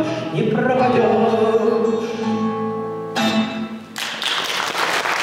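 A man singing with an acoustic guitar ends the song on a long held note and a final strum. Audience applause breaks out about four seconds in.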